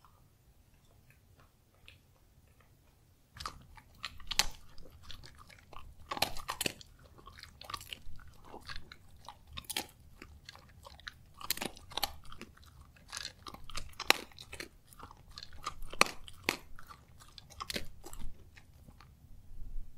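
Crunchy chewing that starts about three seconds in and goes on as a string of irregular crunches, several each second.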